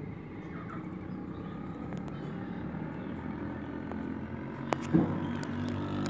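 A steady, low engine-like drone that slowly grows louder, with a couple of sharp clicks about five seconds in.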